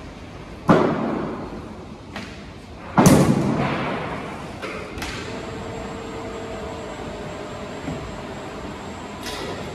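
Two heavy thuds about two seconds apart, the second louder, each ringing out briefly, as a crane loads heavy transformers onto a truck trailer. After them comes a faint steady hum.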